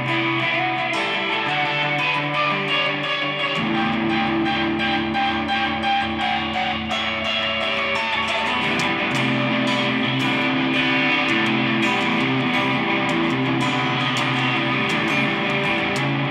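Guitar strumming sustained chords, the chord changing a few seconds in and again about halfway through.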